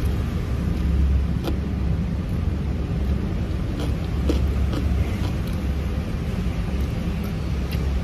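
Steady low rumble of background noise, with a few faint, sharp clicks from chopsticks and eating at the bowl.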